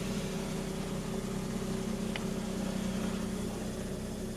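Mazda RX-8's freshly rebuilt two-rotor Wankel engine idling steadily at an even pitch, warming up just after its first start. A faint tick comes about two seconds in.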